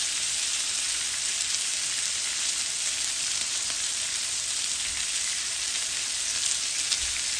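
Striploin beef steaks sizzling steadily in a very hot grill pan on high heat, with pats of butter melting on top of them.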